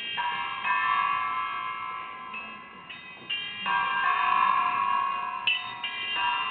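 Hanging metal objects struck one after another, about ten times, each strike ringing on in several clear, overlapping chime-like tones.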